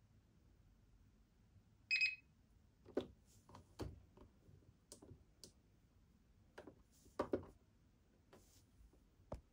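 A single short electronic beep about two seconds in, followed by a run of irregular clicks and knocks.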